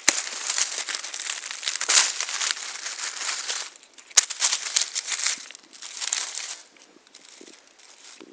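Dry fallen leaves rustling and crunching in irregular bursts as the leaf litter is handled and stepped through, with a sharp click about four seconds in. It quietens over the last second or so.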